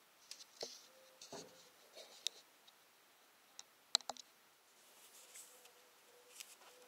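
Light clicks and taps of a plastic oil bottle being handled, with one sharper click about four seconds in, then the soft rustle of a cloth rag wiping the engine's oil dipstick.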